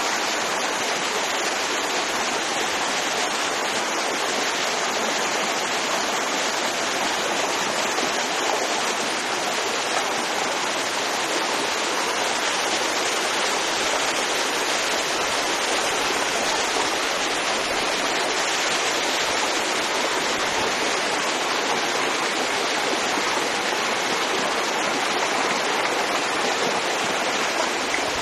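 Heavy downpour with floodwater running across a street: a steady, unbroken rushing hiss of water.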